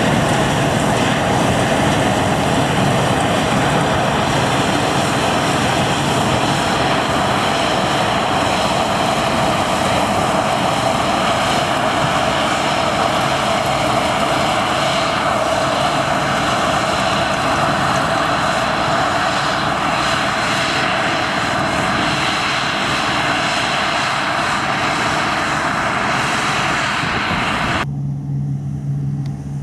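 Harvest machinery running loud and steady, a dense mechanical noise with a steady whine. Near the end it switches abruptly to a quieter, lower engine hum.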